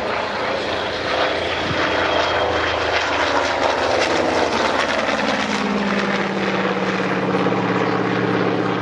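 Douglas A-1 Skyraider's Wright R-3350 18-cylinder radial engine and propeller in a low flyby. A loud rush of engine and propeller noise as it passes, its pitch dropping, then settling from about halfway into a steady drone as it goes away.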